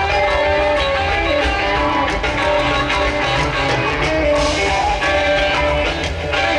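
Live rock band playing through a large concert sound system, with electric guitar to the fore.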